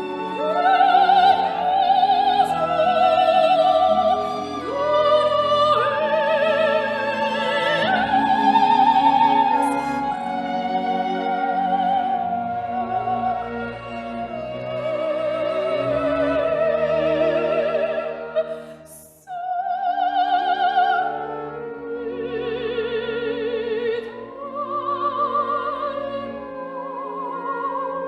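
Operatic singing: a high voice holds long notes with vibrato over an orchestral accompaniment. The music breaks off briefly about two-thirds of the way through, then continues.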